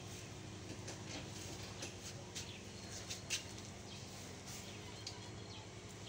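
Knapsack sprayer being worked: faint scattered clicks and short hisses of the pump and nozzle, the sharpest click a little past halfway, over a steady low hum.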